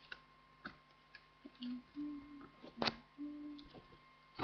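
A CD photo booklet being handled and its pages turned: light paper clicks and knocks, a sharper one about three seconds in and another at the very end, with a few short low hums in between.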